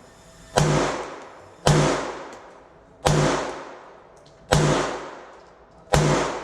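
Five gunshots from a 9mm Glock 19 fitted in a carbine conversion kit, fired slowly about one and a half seconds apart, each shot ringing out with an echo that fades.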